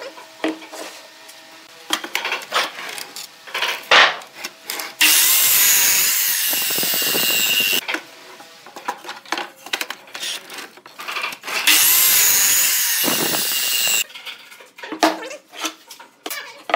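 Miter saw crosscutting pine boards twice, each cut a burst of about three seconds with the motor's high whine, the first about five seconds in and the second about twelve seconds in. Knocks and clatter of the boards being handled come between the cuts.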